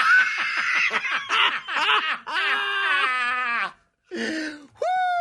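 Men laughing hard in quick, high-pitched bursts of laughter.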